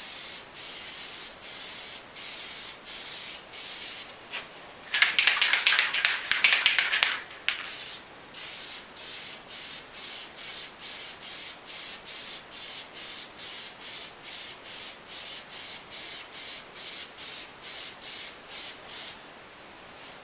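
Aerosol can of Plasti Dip spraying in quick short bursts, about two to three hisses a second. About five seconds in there is a louder, crackling two-second stretch.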